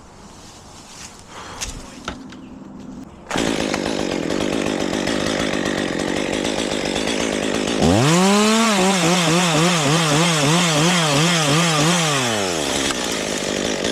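Chainsaw starting up loud about three seconds in, then throttled up to full speed and cutting through a maple limb, its pitch wavering up and down as the chain bites. It drops back off the throttle near the end.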